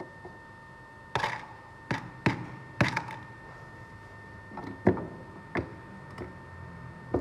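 A series of sharp, irregular knocks and taps of hard objects being handled, about nine in all, the loudest near the middle. A faint steady high tone sits underneath.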